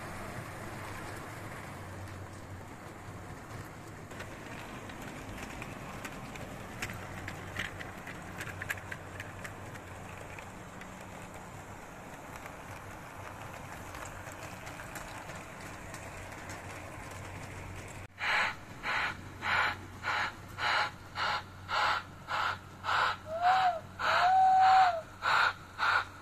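O-gauge model trains running on the layout track, a steady running noise of motors and wheels. In the last third it changes to a model steam locomotive's sound unit chuffing in an even beat of about two chuffs a second, with two short whistle blasts near the end, the second one longer.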